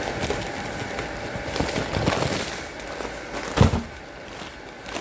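Handling noises: crackly rustling and a few light knocks, with one loud, low thump about three and a half seconds in.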